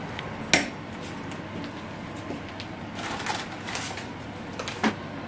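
Kitchen handling sounds: a plastic bacon packet crinkling and rustling as it is handled. Two sharp knocks or clacks, a loud one about half a second in and another near the end.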